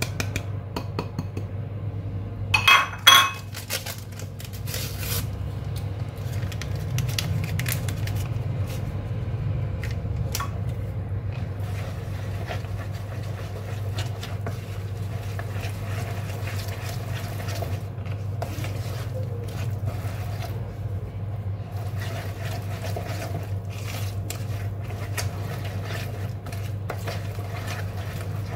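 Flour being mixed by hand into a wet basbousa batter in a plastic bowl: faint scraping and squishing over a steady low hum. There is a brief clatter about three seconds in.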